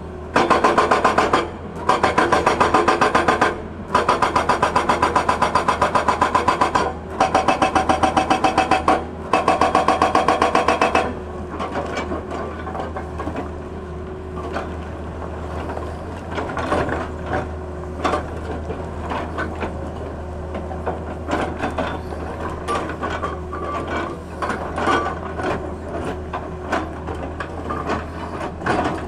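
Excavator-mounted hydraulic rock breaker hammering rock with rapid blows in about five bursts of one to three seconds each, broken by short pauses. About eleven seconds in the hammering stops, leaving the Tata Hitachi excavator's diesel engine running with a steady hydraulic whine and scattered knocks of rock.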